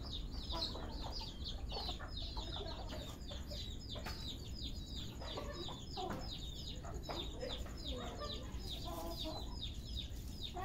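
Serama bantam chickens calling: a continuous stream of quick, high chirping calls, with lower clucks in the middle.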